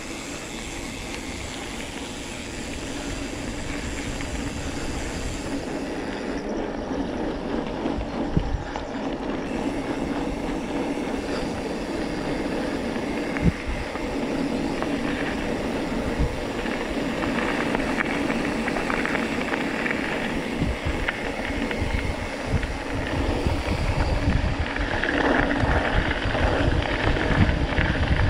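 Mountain bike rolling over a gravel and dirt road: a steady rush of tyre noise and bike rattle that grows gradually louder, with a few sharp knocks from bumps.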